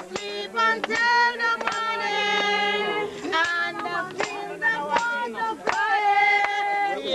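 A group of voices singing together in long held notes, with a sharp hand clap a little under once a second keeping the beat.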